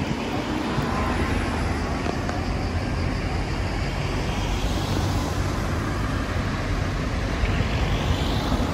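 Street traffic: a steady wash of road noise from passing cars, with a rising whine near the end.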